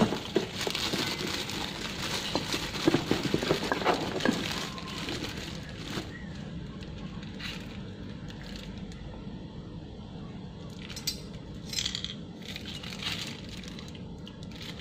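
Clear plastic wrapping crinkling and rustling as a wok's detachable handle is handled and unwrapped, busiest in the first few seconds, with a few short crinkles again near the end.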